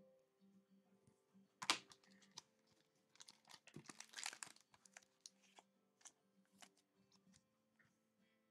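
Crinkling and light clicking of trading-card packaging and cards being handled, with one sharp click about two seconds in and a denser stretch of crinkling in the middle.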